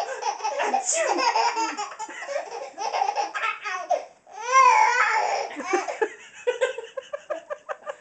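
Baby laughing hysterically in repeated belly laughs, with a loud high squeal about halfway through; near the end the laughter breaks into quick short breathy pulses.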